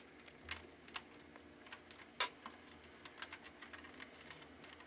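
Irregular light clicks and rustling of a plastic punch card being handled and clipped into a knitting machine's card reader, with one sharper click about two seconds in.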